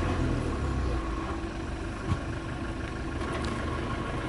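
Engine idling steadily, with a single short knock about two seconds in.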